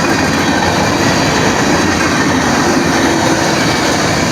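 Norfolk Southern train's cars rolling past, a loud steady rumble and rattle of wheels on rail.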